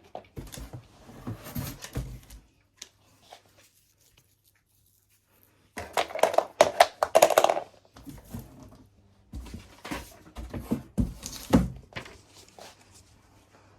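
Packaging and plastic vacuum attachments being handled and unpacked: bursts of rustling and crinkling with hard plastic knocks, separated by a few seconds of quiet.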